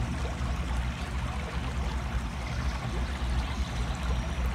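Steady rushing background noise with a low rumble underneath, even throughout with no distinct events.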